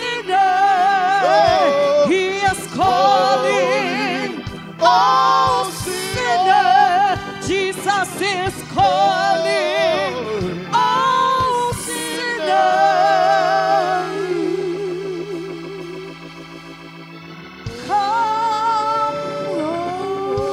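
Women's voices singing a slow gospel hymn with wide vibrato over sustained organ chords. The singing eases off about three-quarters of the way through, leaving a softer held tone, then comes back in.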